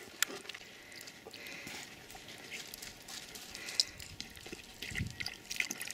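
A black wolf lapping water from a water tub: faint, scattered wet laps and small splashes, busier in the second half.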